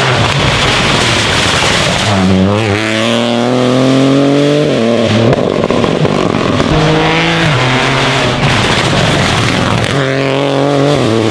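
Rally car engine at high revs, the pitch climbing and dropping several times as it is driven hard through the gears.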